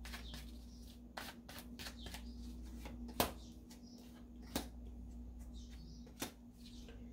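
Tarot deck being shuffled by hand: a run of soft card flicks with three sharper card snaps, one about three seconds in, one a little after four and a half seconds, and one just after six seconds, as a card is drawn and laid on the table.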